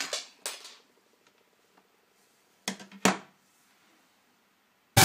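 Camera handling noise as a sleeve rubs over the microphone, then two sharp clatters of plastic LEGO pieces about half a second apart, and a brief loud burst near the end.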